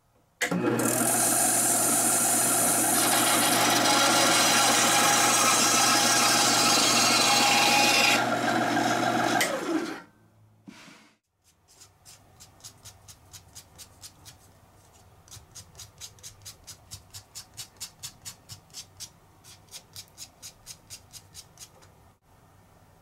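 Benchtop band saw running and cutting through a wooden dowel for about nine seconds, then stopping abruptly. After a short pause, a short piece of wooden dowel is sanded by hand: quick back-and-forth scratching strokes, about three a second.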